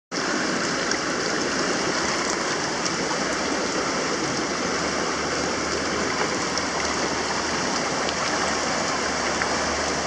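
River water rushing steadily around a hand and fish held in the current, close to the microphone.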